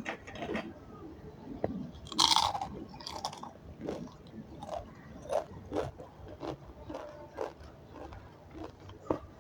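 A person chewing a mouthful of food close to the microphone, with wet chewing clicks and crunchy bites, the loudest crunch coming about two seconds in.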